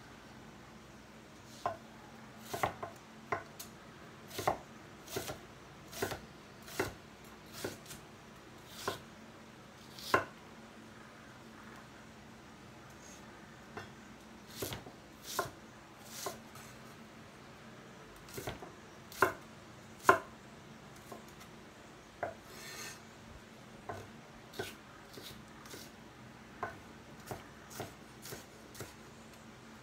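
A cleaver chopping red onion on a wooden cutting board: separate sharp knocks of the blade striking the board at an irregular pace, with a pause of a few seconds about a third of the way in.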